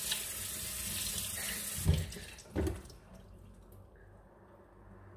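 Kitchen tap running into a stainless-steel sink, with two dull thuds about two seconds in, after which the running water stops.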